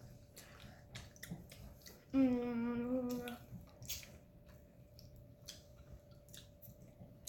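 A child hums a held 'mmm' for about a second, a couple of seconds in, amid scattered small clicks and mouth noises from chewing and handling gummy candy.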